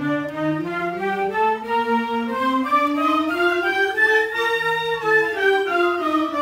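School concert band, flutes among them, playing a scale in octaves, one held note about every half second, climbing one octave and then stepping back down near the end.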